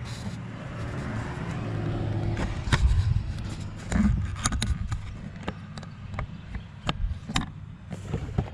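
A motor vehicle's sound swells and fades over the first few seconds, then a run of sharp clicks and taps follows as the plastic turn-signal marker lamp is handled and fitted into place.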